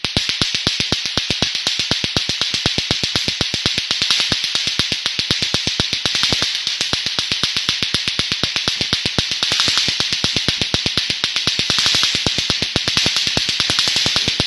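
Rapid, evenly spaced clicks over a steady high hiss.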